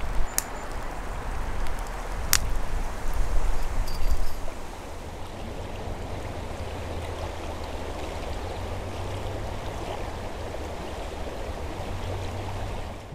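Steady rushing outdoor background noise, louder and uneven for the first four seconds with a sharp click about two seconds in, then even.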